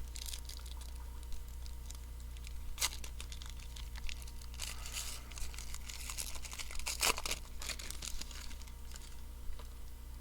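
Plastic trading-card pack wrapper being torn open and crinkled, heard as irregular crackles and short tearing sounds.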